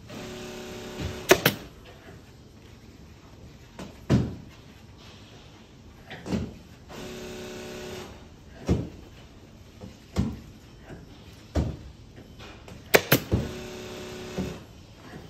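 Pneumatic upholstery staple gun driving staples into a tufted Chester seat: a series of sharp clacks every second or two, a close pair among the loudest, with three stretches of steady hiss about a second long in between.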